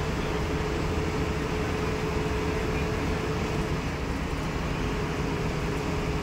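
Steady rumble of a bus driving through a road tunnel, heard from inside the cabin, with a thin steady hum that stops about four seconds in.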